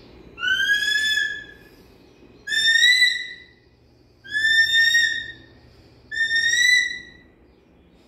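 Short-toed snake eagle calling: four whistled calls about a second long each, under two seconds apart, each rising slightly in pitch and then held.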